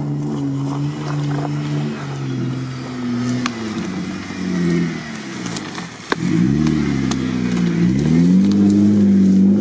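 Jeep Wrangler Unlimited's engine working off-road at low speed, its note sagging, then revving up and down and holding higher and louder as it drives past close by. A single sharp crack about six seconds in.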